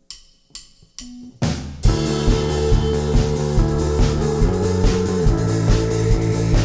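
Rock band music starting up: a few sharp clicks and a short tone, then about two seconds in the full band comes in with guitar and drums on a steady beat.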